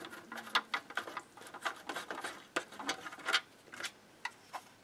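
Screw being worked loose with a screwdriver in a metal chassis: a string of small, irregular clicks and scrapes.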